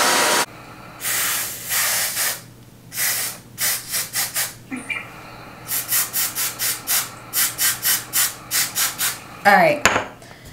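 A hair dryer cuts off about half a second in. Then an aerosol can of freeze hair spray gives a long run of short spray bursts, spaced out at first and then quicker, about three a second. A brief vocal sound comes near the end.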